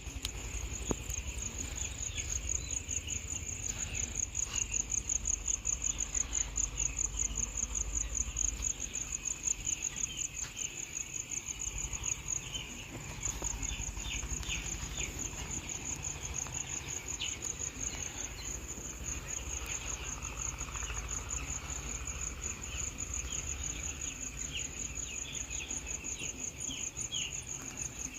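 Many week-old chicks peeping in short, high, falling calls, scattered thickly over a steady, high, evenly pulsing trill like a cricket's and a low hum.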